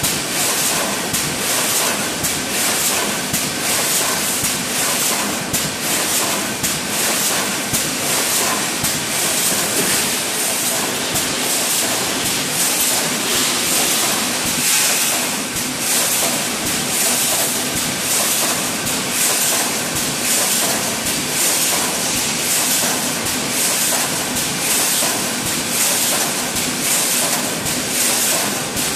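Automatic wire mesh welding machine for 5–12 mm construction (BRC) mesh running in production: a steady hiss with a dense run of quick clicks and clacks as it welds and advances the mesh.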